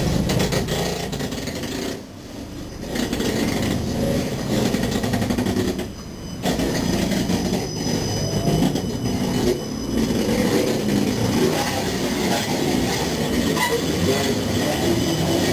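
Siemens Combino Supra low-floor tram rolling slowly past at close range: a steady rumble of wheels on rail, with the level dipping briefly three times.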